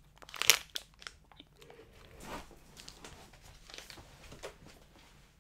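A person biting into and chewing a Pätkis Maxi Crunchy mint chocolate bar with crisped rice: a sharp crunch about half a second in, then faint crunchy chewing.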